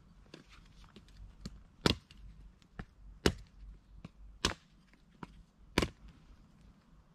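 A blade chopping into firewood: four sharp strikes about a second and a quarter apart, with lighter clicks between them.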